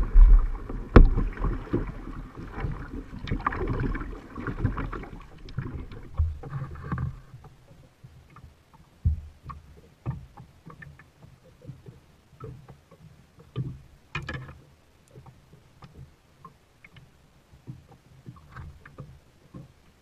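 Water and handling sounds aboard a plastic Sun Dolphin kayak. For about the first seven seconds there is rumbling, sloshing noise with a few sharp knocks. After that it goes much quieter, with scattered light knocks and taps.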